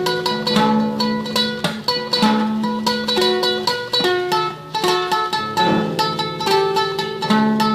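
Solo classical guitar playing a fast tremolo melody, each high note plucked over and over in quick succession, over plucked bass notes.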